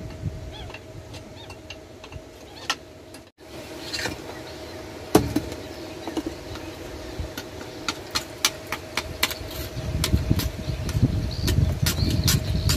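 Metal tool scraping and tapping on the rusty halves of a split water-pump casing: a string of short sharp clicks that comes thicker in the second half.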